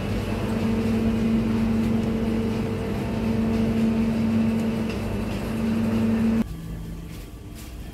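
Steady hum and fan noise from a refrigerated supermarket display case, which cuts off suddenly about six and a half seconds in.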